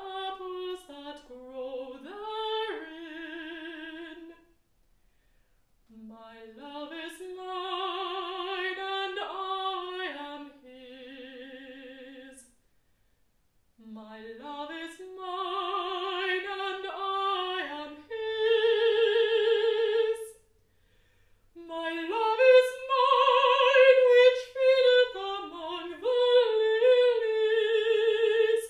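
Unaccompanied mezzo-soprano singing, a solo voice with wide vibrato in long held phrases broken by short pauses for breath. The line climbs higher and grows louder toward the end.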